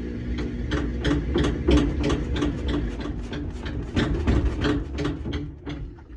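Samsung top-load washing machine spinning its tub: a steady low motor hum with a regular knocking about three times a second, fading out near the end.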